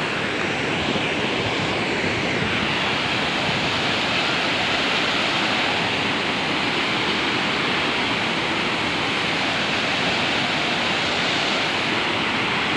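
Waterfall torrent of white water crashing over rocks, a steady loud rushing noise that holds even throughout.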